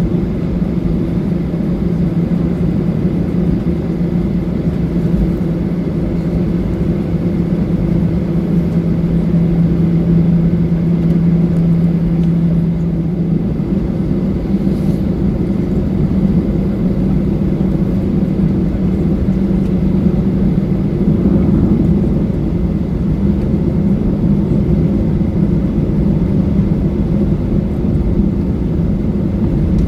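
Boeing 737-800 jet engines (CFM56) running steadily with a loud, continuous roar and a low hum that steps up slightly in pitch about 13 seconds in.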